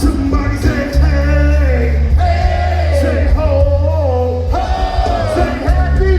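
Live concert music: a sung vocal line with held, gliding notes over a heavy, sustained bass.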